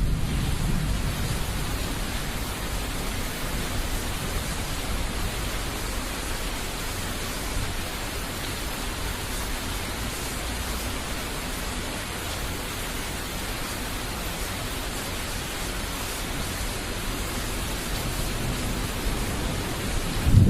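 Steady hiss of thunderstorm rain. The low rumble of thunder dies away over the first couple of seconds, and a new rumble begins to build near the end.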